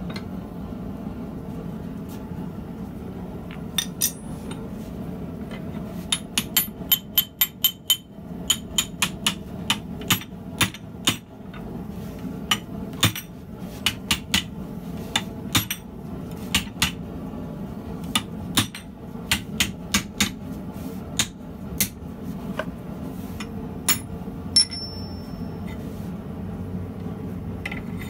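Hand hammer striking red-hot steel guides clamped in a vise, shaping them around a square bar: a few blows, then a fast run of sharp metallic strikes at about four a second, then slower scattered blows, some with a short ring. A steady low hum runs underneath.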